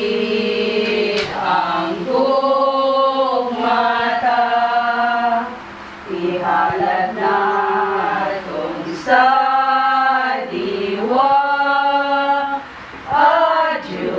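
A group of women singing a hymn together, unaccompanied, in long held phrases with two short breaks for breath.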